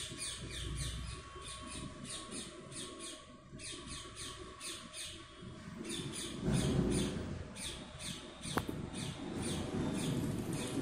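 A bird chirping over and over in short, falling, high-pitched calls, about three a second, with a brief pause a little before the middle. Paper pages rustle and are handled under it, loudest about two-thirds of the way in and again near the end.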